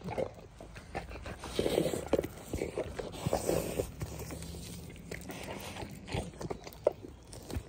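A Rottweiler chewing and tearing at a raw bone-in steak: irregular wet bites, scrapes and crunches in short bursts.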